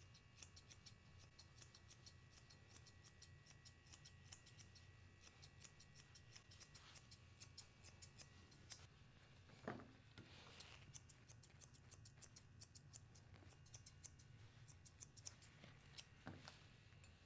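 Grooming shears snipping a small dog's hair, many quick, faint snips one after another.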